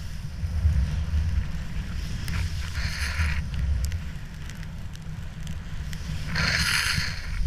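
Snowboard turning through deep powder, with snow spray hissing twice, about two seconds in and again near the end, over a steady rumble of wind on the camera's microphone.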